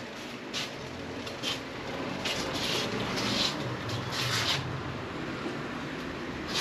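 2008 Vectrix VX-1 electric scooter rolling slowly in at walking pace, its electric drive giving only a low hum, with several short hissing sounds along the way.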